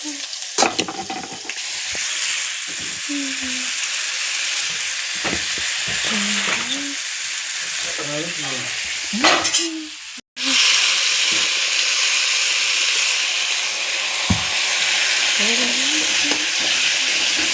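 Food sizzling steadily in hot oil in a frying pan, with a few stirring scrapes. The sound cuts out briefly about ten seconds in.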